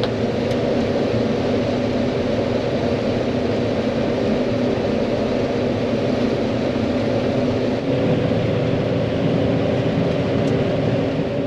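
John Deere 9500 combine running steadily while harvesting corn: a continuous machine drone with a steady hum. The low end shifts slightly about eight seconds in.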